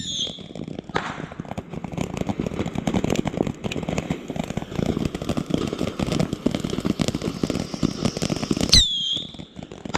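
Consumer fireworks going off: a dense run of crackling pops, with a sharp crack at the start and another near the end, each followed by a short falling whistle.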